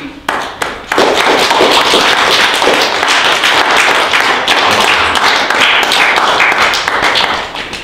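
Applause from an audience of schoolchildren. It begins with a few single claps, swells into dense, steady clapping, and tapers off near the end.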